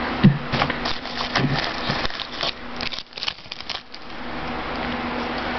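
Trading cards being handled: a run of quick clicks, slides and scrapes of card stock, thinning out after about four seconds, over a steady background hiss.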